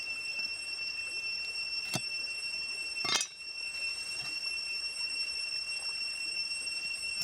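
A cleaver knocking against a wooden chopping block twice, a light knock about two seconds in and a louder one about a second later, over a steady high insect drone.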